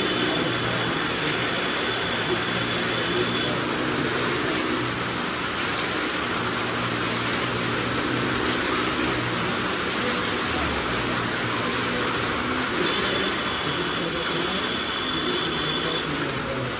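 Several small cars running laps around the near-vertical wooden wall of a well-of-death arena: a loud, steady mix of engine noise and tyre noise on the wooden planks. A thin high tone comes in twice, near the start and again near the end.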